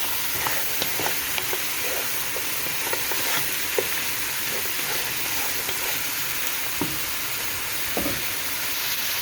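Lamb pieces with onion and spices sizzling in a pot as they are stirred, with a steady frying hiss and scattered light clicks of the utensil against the pot.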